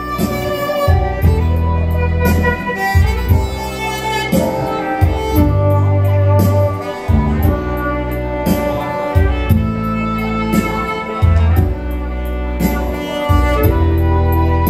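Two electronic keyboards playing an instrumental passage: a sustained string-like melody over held bass notes and a steady accompaniment beat.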